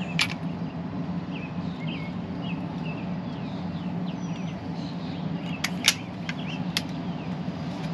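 Weihrauch HW97K underlever spring air rifle being cocked and loaded: a sharp metallic click as the underlever is unlatched, then a quick cluster of four clicks later on as the sliding breech and the underlever latch are closed. Faint bird chirps fall in between, over a steady low hum.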